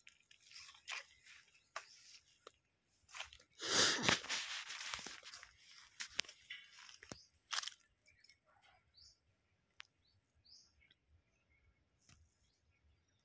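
Dry crunching and rustling for about eight seconds, loudest around four seconds in. After it, small birds chirp faintly with short rising calls, with an odd click.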